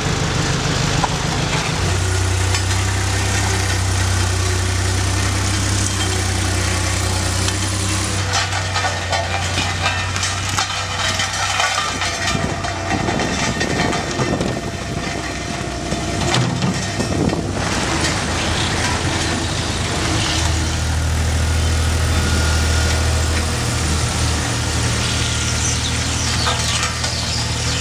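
Diesel engines of road-repair machinery, a JCB loader and a small asphalt roller, running steadily and changing abruptly at several cuts. In the middle stretch short knocks and scrapes of shovels working hot asphalt patch mix in.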